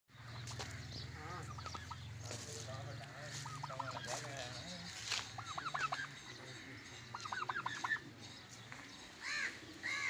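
Farm fowl calling in short bursts of rapid notes, about one burst every two seconds, with a couple of single harsher calls near the end, over a faint low steady hum.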